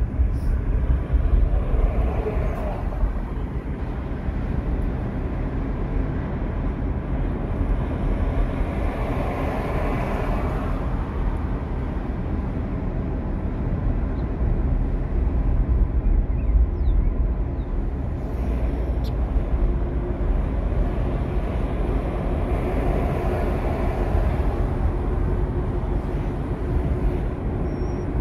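Steady low rumble of a car driving at road speed, heard from inside the cabin: tyre and road noise that swells a few times.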